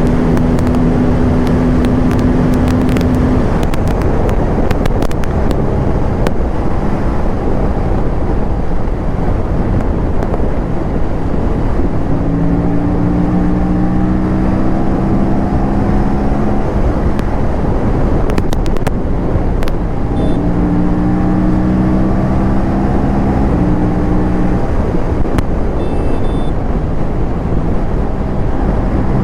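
Aprilia parallel-twin sport bike ridden at speed under heavy wind rush. Its engine note climbs slowly under throttle about halfway through, then steps down, and climbs again near the end before stepping down once more, as the bike pulls through the gears.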